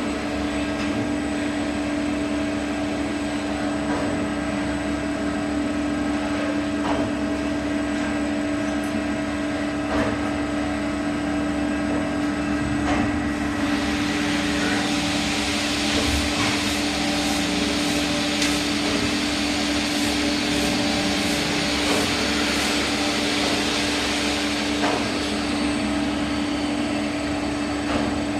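CNC lathe running while turning a V-belt pulley, with a steady hum. About halfway through, a hiss with scattered clicks joins in, then fades near the end.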